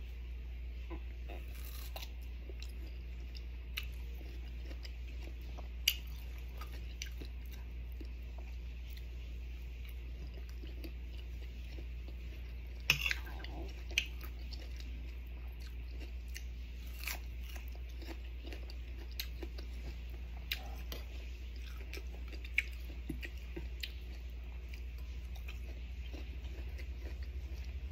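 Close-up crunching and chewing of firm unripe green mango slices, with scattered sharp crunches of biting through the flesh. A steady low hum runs underneath.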